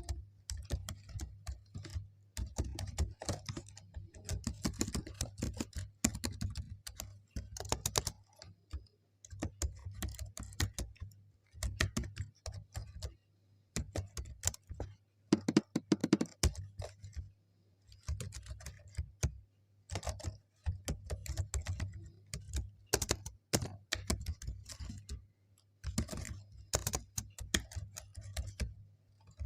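Computer keyboard typing: quick runs of key clicks in bursts of a few seconds, broken by short pauses. A faint low hum sits underneath.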